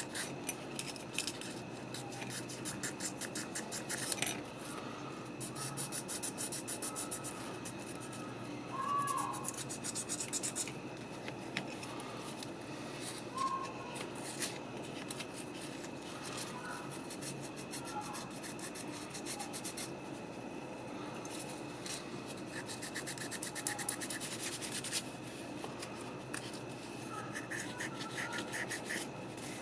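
Rapid scraping and scrubbing strokes on the contacts of a Chevy truck dimmer switch being cleaned, coming in bursts of a few seconds with short pauses.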